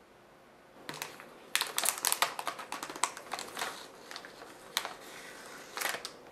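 Plastic candy-kit wrapper and foil pouch crinkling as the package is opened and its contents handled: an irregular run of sharp crackles, densest in the first half, with a last burst near the end.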